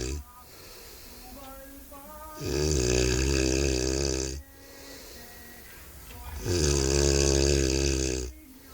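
A man snoring loudly: two long, rattling snores about four seconds apart, with quiet breathing gaps between them.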